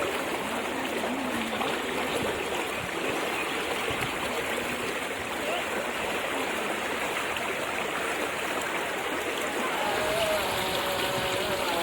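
Floodwater flowing fast, a steady, even rushing of water. A few faint held tones join in near the end.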